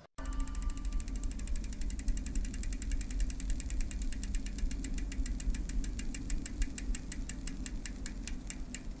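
A rapid, even mechanical ticking that slows gradually toward the end, over a low steady hum.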